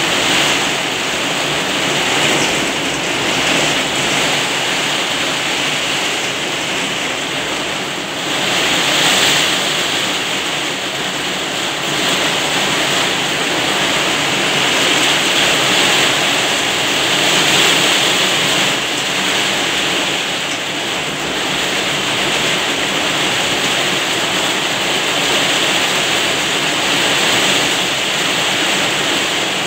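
Heavy rain beating down, a dense steady hiss that swells and eases every few seconds.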